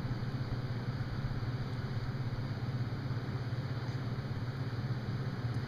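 A steady low machine hum with a fast flutter, unchanging throughout.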